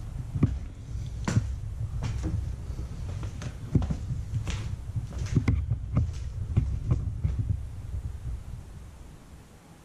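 Footsteps and irregular knocks over a low steady rumble, fading out near the end.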